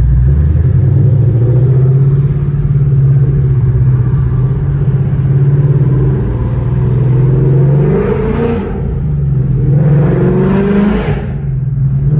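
2018 Ford Mustang GT's 5.0 L V8, fitted with catless long-tube headers and aftermarket mufflers, running steadily while driving, then revving up twice with a rising pitch, about eight and ten seconds in.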